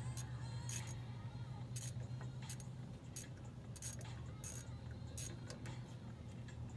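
Light metallic clinks and taps of tools and brake parts being handled as a drum-brake wheel cylinder is worked free, over a steady low hum.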